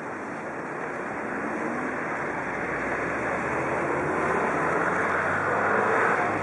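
Low engine hum under a broad wind-like hiss, growing louder over about six seconds and easing slightly near the end.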